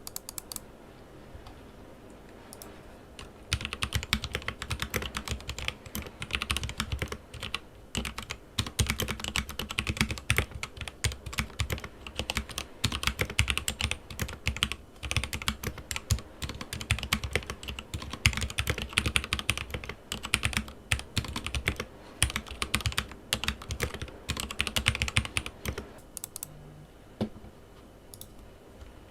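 Rexus Daxa M84 Pro mechanical keyboard with Gateron Yellow linear switches lubed with Krytox 205g0, typed on fast in a steady stream of keystrokes. A few stray keystrokes come first, then continuous typing starts about three seconds in and thins to occasional keys near the end.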